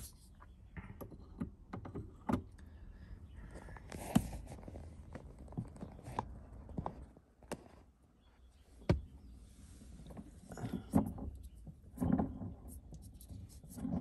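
Scattered sharp clicks and a few dull knocks of hard plastic as a Toyota Tacoma's shift knob and its plastic shift collar are handled and worked onto the automatic gear-shift lever.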